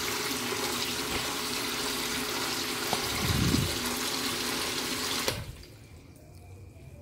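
Small 12-volt submersible pump running in a bucket of water, a steady hum under the churning splash, with a dull low bump about three seconds in. The pump cuts out suddenly about five seconds in, as the backup circuit's power is switched over.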